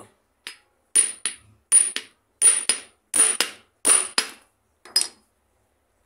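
Hammer striking the end of a steel gear shaft set into a blind bearing packed with wet toilet paper: a dozen or so sharp, ringing blows, mostly in quick pairs, stopping about five seconds in. Each blow drives the wet paper into the bore to push the worn bearing out of the scooter's transmission cover.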